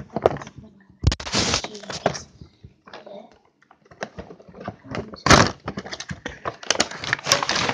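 Cardboard toy box and its contents being handled close to the microphone: irregular bursts of rustling and clattering with sharp knocks.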